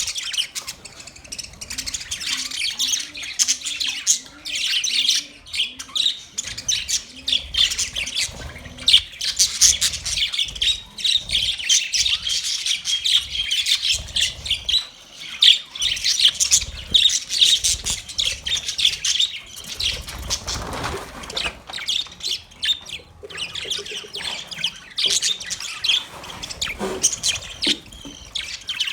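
A flock of budgerigars chirping and chattering at once: a dense, unbroken stream of short, high calls.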